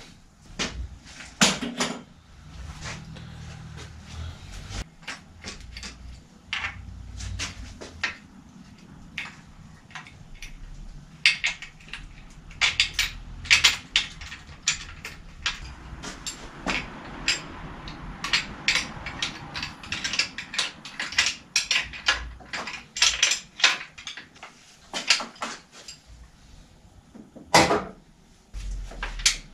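Metal hand tools clicking and knocking on a city bicycle's rear frame in a workshop repair stand while a kickstand is being fitted: irregular sharp clicks, some in quick runs.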